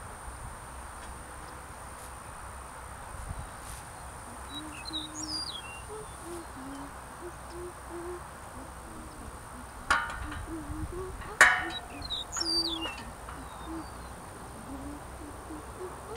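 Two sharp metallic clanks about a second and a half apart, the second the louder and ringing briefly, as the solar tracker's metal frame rails are handled and fitted on the post. Birds call throughout: short low calls and, now and then, higher chirps.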